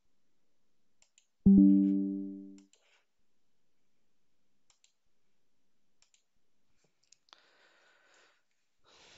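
A single low computer chime sounds about a second and a half in and dies away over about a second, with faint mouse clicks scattered around it.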